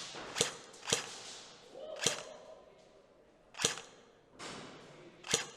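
Airsoft gun shots: five sharp single cracks at uneven spacing, about a second or more apart.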